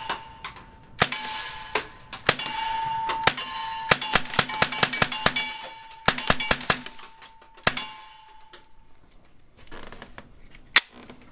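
A string of suppressed .22 rimfire shots through a Rugged Oculus 22 suppressor, each hit on steel plates giving a sharp clang and a ringing tone that hangs on. The shots come singly at first, then fast in a quick string in the middle, then two more spaced shots near the end.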